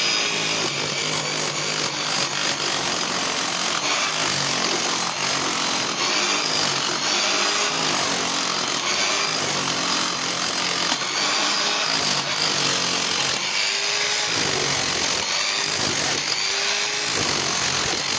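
Makita rotary hammer drill running continuously, its motor pitch rising and falling at times, most noticeably near the end.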